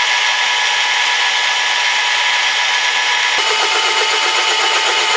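Drill head of a crankshaft balancing machine running as a 3/4-inch bit cuts into a steel Ford 302 crankshaft counterweight to take weight off for balancing: a steady motor whine over the cutting noise, with a lower grinding sound joining about three and a half seconds in.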